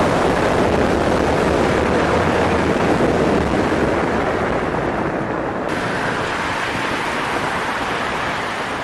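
Wind rushing over the microphone while riding an E-Mobo DuoTork electric kick scooter at speed: a steady, loud rush of air with road noise underneath, easing slightly about halfway through.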